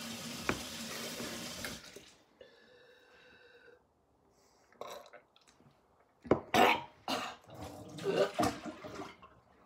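A steady rushing noise for the first couple of seconds. After a quiet stretch, a person coughs, gags and splutters several times in short loud bursts after gulping down a foul-tasting mixed drink.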